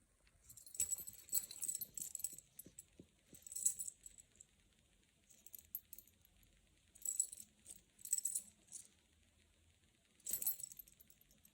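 Gold chain jingling and clinking as it is handled, in about six short bursts with quieter gaps between them.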